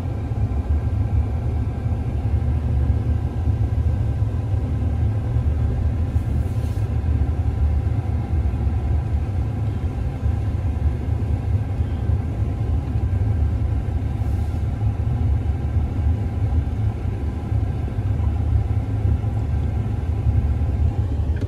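Steady low rumble of a vehicle cab while driving slowly, the engine and road noise heard from inside. Two faint swishes of the windshield wipers come about eight seconds apart.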